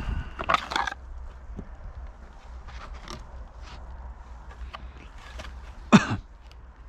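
Black plastic gutter connector handled in gloved hands: light clicks and scrapes of plastic against plastic, with one sharp knock near the end, over a low steady rumble.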